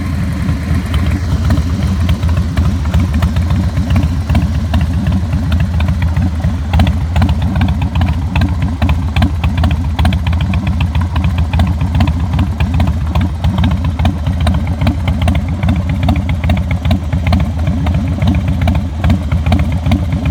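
Harley-Davidson Softail Deuce V-twin idling steadily through Vance & Hines Big Shots pipes with quiet baffles fitted, a deep exhaust note with a light mechanical ticking over it.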